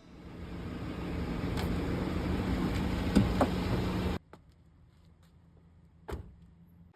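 A vehicle running, fading in and then cut off abruptly about four seconds in, followed by a single short knock near the end.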